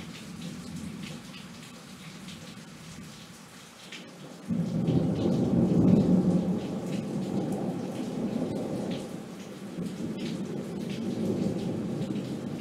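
Steady rain falling, with a rolling thunder rumble that starts suddenly about four and a half seconds in, is loudest a second or so later, and rumbles on, slowly easing.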